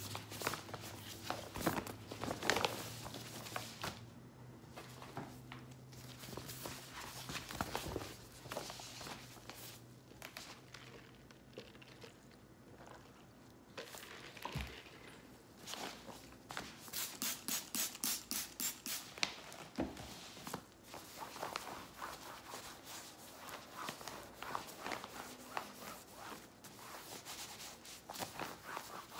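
Rustling and crinkling as a nonwoven reusable shopping bag is handled on a plastic tablecloth and wiped down with a cloth, with a quick run of rhythmic rubbing strokes about two-thirds of the way through. A low hum sounds under the first third.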